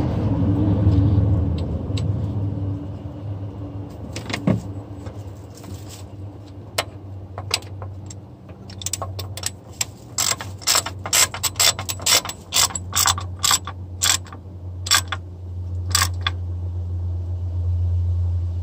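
Hand ratchet clicking in quick runs as bolts are wound in by hand, over a steady low hum.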